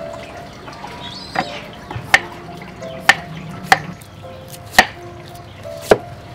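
Knife cutting crisp raw vegetables, with about six sharp chopping knocks roughly a second apart.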